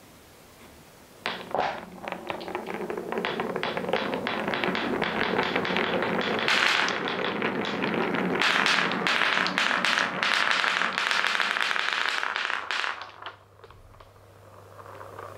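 A train of wooden balls rolling and clattering down a wooden marble run: a dense run of clicks and knocks over a steady rolling rumble, starting about a second in and dying away near the end.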